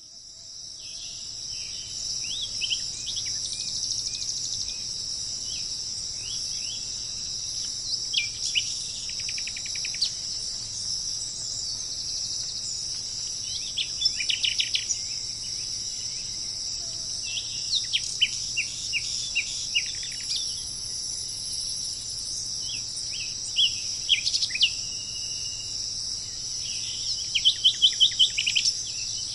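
A steady, high chorus of insects such as crickets, with a songbird breaking in every few seconds with short phrases of quick falling notes. The sound fades in over the first couple of seconds.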